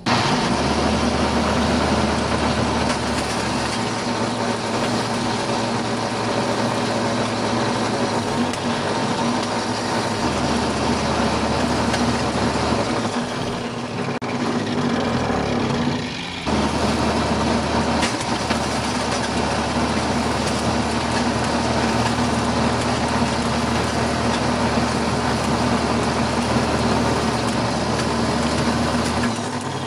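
Homemade grinder machine running steadily while shredding cell phones, MP3 players and toys; the noise dips briefly about halfway through.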